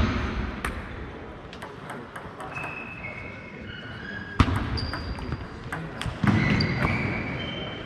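Celluloid-type table tennis ball clicking off bats and table in a rally, echoing in a large sports hall, with two louder knocks about four and six seconds in and a few short high squeaks.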